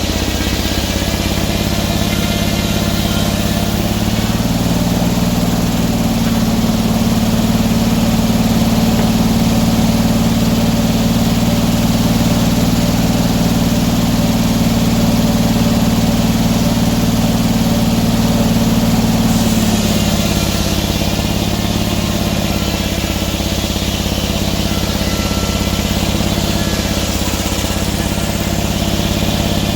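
An engine running steadily. It speeds up about four seconds in, holds there, and drops back to a lower speed at about twenty seconds.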